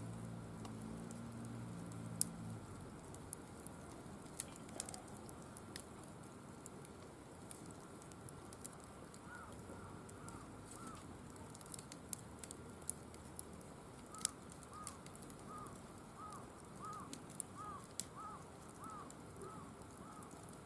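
Firewood burning in a wire-mesh fire pit, crackling with irregular sharp pops. From about ten seconds in, a short chirp repeats roughly twice a second.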